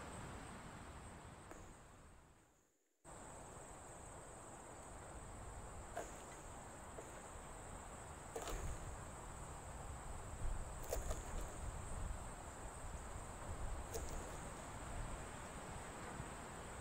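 Insects trilling in a steady high drone, cut off briefly about three seconds in. Scattered light knocks and taps come from shallots and garlic being pressed and handled in a wooden mortar.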